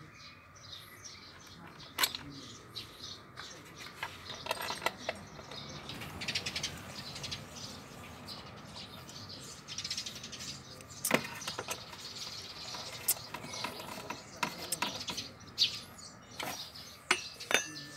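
Scattered sharp clicks and metal clinks of hand tools and parts being handled on a scooter, the loudest about 2 and 11 seconds in, with birds chirping in the background.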